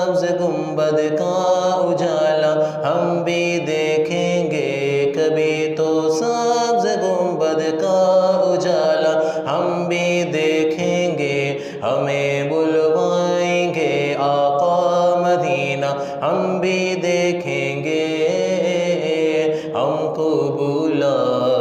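A man's solo voice singing a naat, a devotional poem in praise of the Prophet, in long held notes that slide and step between pitches, with brief breaths between phrases.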